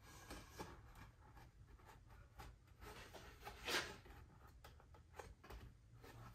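Faint handling of solid cherry frame-and-panel parts on a workbench: scattered light wooden taps and rubs, with one louder brushing swish a little under four seconds in. A low steady hum lies under it.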